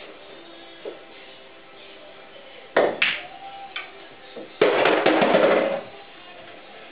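Pool shot on a home table: two sharp clacks about three seconds in, the cue tip striking the cue ball and the cue ball hitting an object ball, then a lighter knock. About a second later comes the loudest sound, roughly a second of rolling rumble as the potted ball runs into the pocket. Faint music plays underneath.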